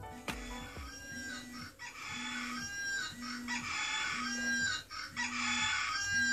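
A chicken-and-rooster alarm sound: short clucking calls repeating about once a second, going off to wake a sleeper.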